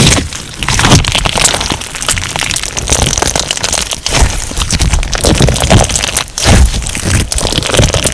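Crunch slime being squeezed and kneaded by hand, giving a dense, irregular run of crackles and pops over soft low thuds.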